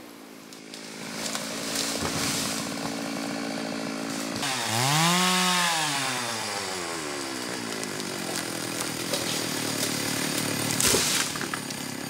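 Chainsaw running, revved up about four and a half seconds in and winding back down, then running steadily.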